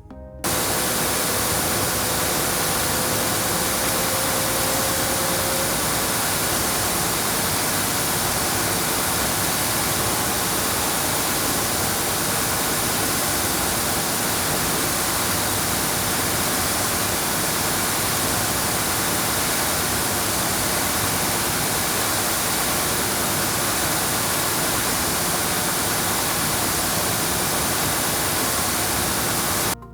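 Jet JWB-225 dual-head wide belt sander running: a steady, even rush of motor, abrasive-belt and air noise with a faint high whine. It cuts in abruptly about half a second in and stops abruptly just before the end.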